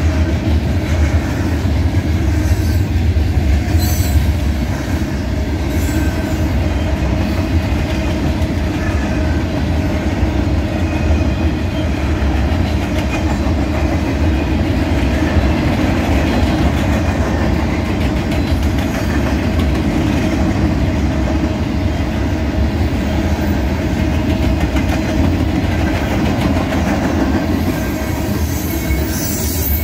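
Freight cars of a heavy mixed freight train rolling past at close range: a steady, loud rumble and clatter of steel wheels on the rails, with a few sharper clacks over the rail joints.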